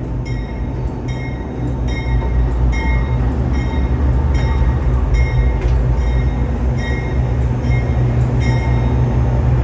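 Amtrak diesel locomotive's engine rumbling low and steady as it backs down onto the train, its bell ringing about every half second. The engine grows louder about two seconds in.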